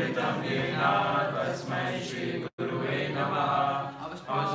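Sanskrit prayer chanted in a steady, melodic recitation, with a momentary dropout a little past halfway.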